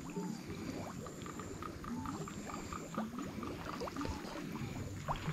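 Shallow muddy water sloshing and gurgling around someone wading, with bubbly rising plops. A quick, evenly spaced run of short high chirps comes in about one and a half seconds in and stops near three seconds.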